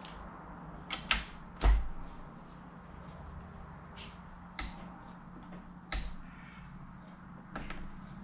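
Scattered sharp metallic clicks and knocks from hand tools and fork parts being handled while a front fork fitting is tightened to torque, with a steady low workshop hum underneath. The loudest knock is about a second and a half in.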